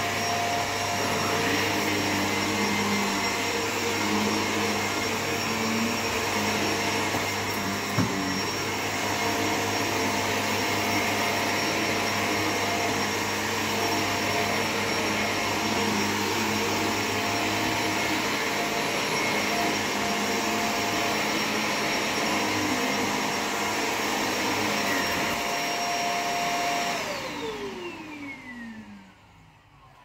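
Shark NV600 Lift-Away upright vacuum cleaner running on carpet with its brushroll spinning, a steady motor rush with a constant whine. There is a single sharp click about eight seconds in. Near the end the motor winds down with a falling whine.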